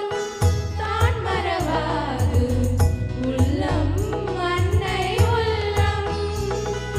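A group of girls singing a melody together through a PA system, over amplified accompaniment with a regular drum beat and a strong bass.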